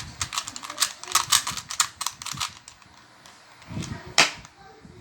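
Plastic Rubik's cube being turned quickly: a rapid run of sharp clicks for about two and a half seconds, then a pause and a few more clicks, the loudest about four seconds in.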